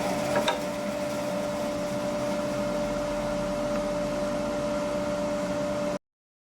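Charnwood W715 10-inch bandsaw running free with a steady motor hum, no longer cutting; a couple of short clicks about half a second in, then the sound cuts off suddenly.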